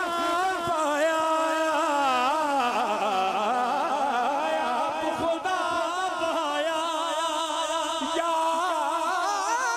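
A man singing a Punjabi devotional naat into a microphone over a PA, drawing out long held notes that turn into wavering ornamented runs without clear words.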